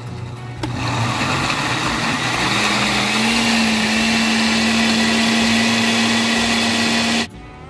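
Oster countertop blender starting about a second in and running at full speed, puréeing cooked chiles, tomatoes, onion and garlic in water into salsa. Its motor hum steps up in pitch a couple of seconds in as the chunks break down into a smooth liquid, and it cuts off suddenly near the end.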